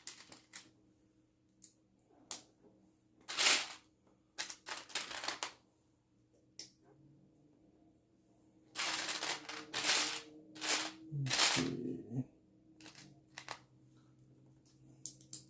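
Plastic Lego bricks clicking and rattling as they are handled and pressed together: scattered sharp clicks, with a few longer rattling bursts of loose pieces about three and a half seconds in and again from about nine to twelve seconds.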